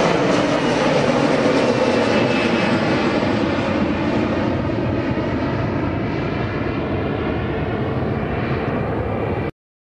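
Turbofan engines of a Flybe Embraer E-Jet airliner at take-off power as it climbs away, a steady jet roar with a faint whine that slowly fades and loses its high end as the plane recedes. The sound cuts off abruptly near the end.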